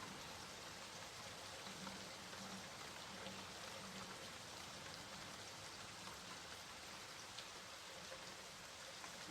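Steady rainfall, with scattered individual drops ticking on a surface.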